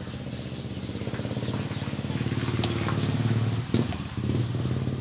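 An engine running steadily with a fast pulsing hum, growing louder to about three and a half seconds in and then easing a little. A few light clicks sound over it near the end.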